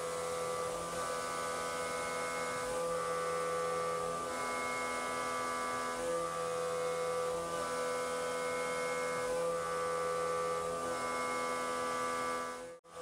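CNC mill spindle with a 3/4-inch ball-nose backdraft end mill at 5000 RPM, taking a light finishing cut around the walls of a 4140 pre-hard steel pocket. It makes a steady machining whine whose tones shift every second or two as the tool ramps around the pocket, and the sound drops out briefly near the end.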